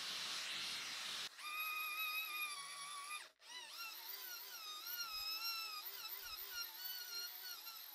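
A gas torch hisses for about a second, then a small handheld rotary tool whines at a steady pitch; from about three and a half seconds in its whine wavers up and down as the spinning wheel is pressed against the steel face plate, polishing it.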